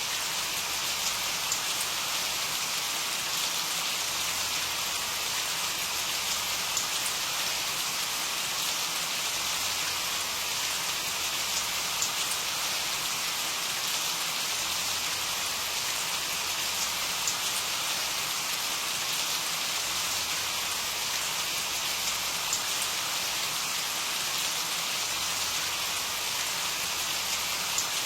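Steady rain falling, a dense even hiss with faint patter of individual drops.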